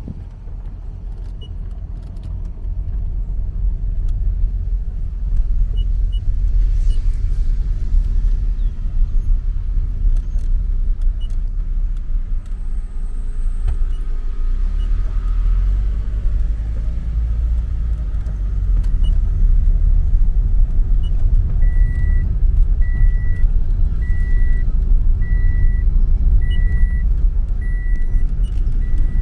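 Inside a moving car: a deep, steady rumble of engine and tyres on a rough road. About two-thirds of the way through, a short high beep starts repeating about once a second.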